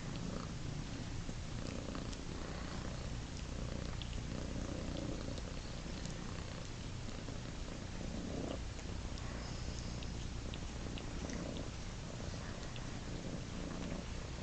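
A domestic cat purring steadily, a low continuous rumble that swells and eases every second or so.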